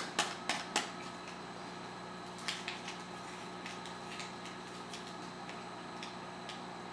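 Three light, sharp clicks in the first second as small test-kit items and the reagent packet are handled, then a few faint ticks a couple of seconds in, over a steady low hum.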